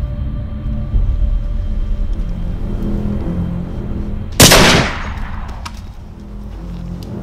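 A single rifle shot, sudden and loud, about four seconds in, with a short ringing tail. It sits over a low, dark music score that runs throughout.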